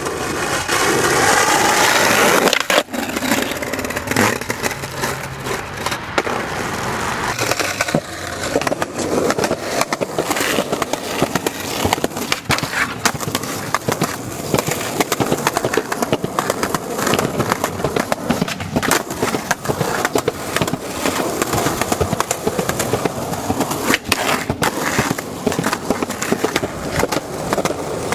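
Skateboard wheels rolling over rough asphalt and concrete, with frequent sharp clacks from the board throughout.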